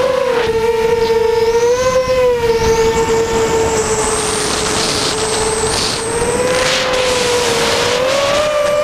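Brushless motors and 6x4.5-inch propellers of a mini FPV quadcopter (Cobra 2208/20 2000KV motors) in flight, heard from a camera on the frame. A steady buzzing whine rises and falls in pitch with throttle and climbs higher near the end.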